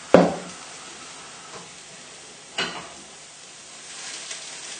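A hot pan of salmon in stock sizzling and bubbling, just off high heat. Two knocks sound over it, about two and a half seconds apart; the first is loud and rings briefly.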